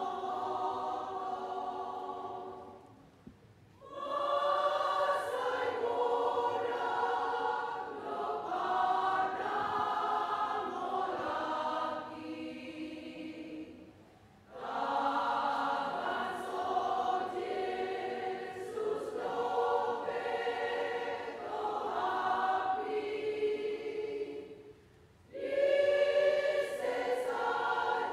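Women's church choir singing a hymn in phrases, with three short pauses between them.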